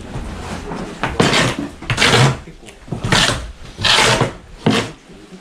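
Rasping scrapes of wood and a hand tool over the mud-caked floor joists of a flood-damaged house, about five strokes roughly a second apart.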